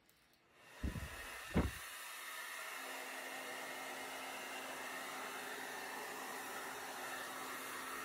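Hair dryer running steadily on cool air, blowing wet acrylic paint across a canvas, with a faint steady hum joining about three seconds in. Two low thumps come just before the airflow settles.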